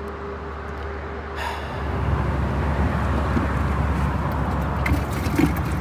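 Steady outdoor background noise: a low rumble under an even hiss, growing louder about two seconds in.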